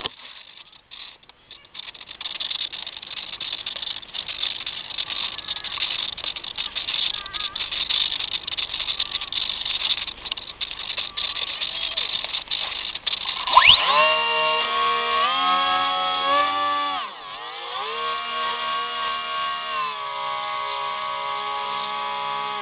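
Onboard recording from a model plane. For the first dozen seconds, rushing wind noise rises and falls on the microphone. About 14 s in, the whine of its electric motor and propeller sweeps up, then runs at steady pitches that step up and down with the throttle, dropping briefly about 17 s in.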